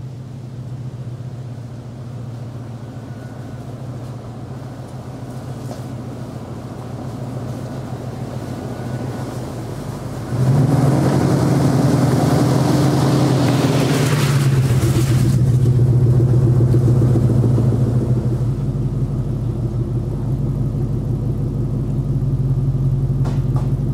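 1999 Jeep Grand Cherokee WJ driving along a leafy dirt trail and passing close by: a steady engine note that gets suddenly much louder about ten seconds in as it comes near. For a few seconds after that the tyres crunch over leaves and twigs.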